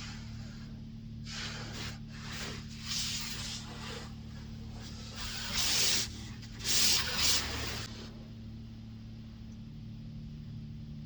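Self-service car wash spray wand hissing in irregular bursts as water is sprayed onto the car, loudest in two bursts in the second half, over a steady low hum of the bay's equipment.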